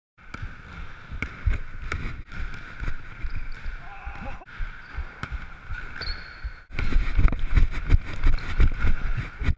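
Pickup basketball on a hardwood gym court heard from a body-worn camera: thudding footsteps and the ball bouncing, with a couple of short sneaker squeaks. The sound breaks off briefly three times and gets louder after the last break, about two-thirds of the way in.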